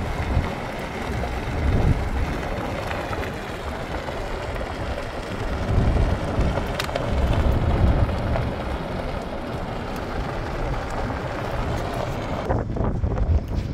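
Wind buffeting the microphone over the rumble of a vehicle driving on a dirt road, in uneven gusts. The higher hiss cuts out suddenly near the end.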